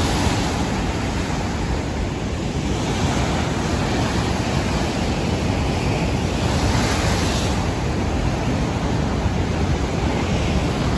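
Heavy ocean surf breaking and churning over coastal rocks: a steady rush of white water, with a louder surge about seven seconds in.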